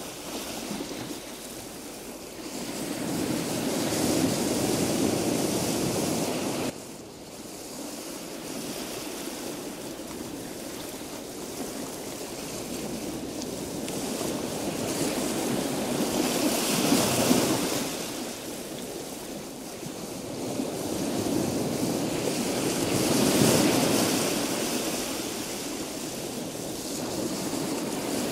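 Sea surf washing onto a sandy beach: a steady rush that swells and eases every several seconds, with a sudden drop about seven seconds in.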